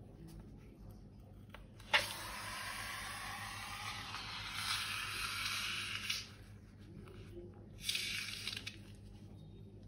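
A sharp snip, then liquid squishing out of a cut slime-ingredient balloon for about four seconds, and a second, shorter squish near the end.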